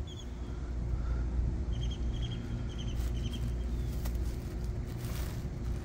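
Steady low rumble of outdoor background, with a few short high chirps and a brief rustle about five seconds in.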